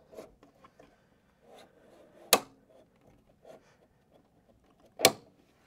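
Two sharp metal clacks, about two and a half seconds apart, with light handling taps and rustles between them, as a ROLL2BASKET pneumatic embroidery frame is seated into an embroidery machine's tubular arms.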